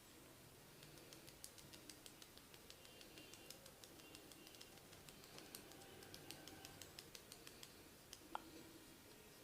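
Faint, irregular crackling clicks and scratches of a barber's fingers working on a client's hair and skin during a massage, with one sharper click near the end.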